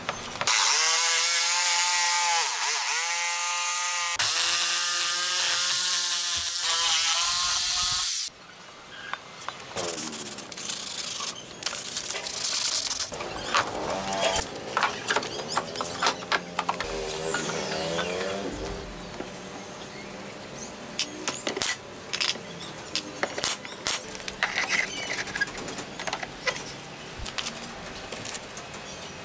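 Corded electric jigsaw cutting round holes through pallet-wood boards, its motor pitch dipping again and again as the blade loads, stopping suddenly about eight seconds in. After that come scattered light knocks and clicks of wooden pieces being handled.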